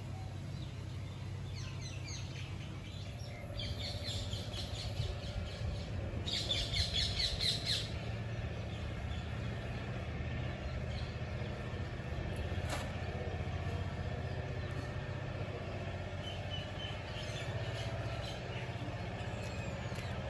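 Birds chirping in quick rapid series, the loudest run about six to eight seconds in, over a steady low background rumble.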